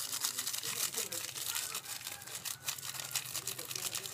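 Thick peanut sauce simmering in an aluminium pot: a dense, fast crackle of small popping bubbles, with the plastic sachet of beef stock powder crinkling as it is emptied in.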